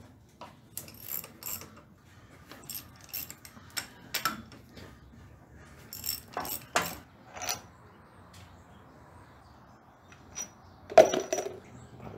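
Socket ratchet clicking in short runs, with metal tools and parts clinking on a diesel engine's cylinder head during teardown, and a louder ringing metal clank near the end.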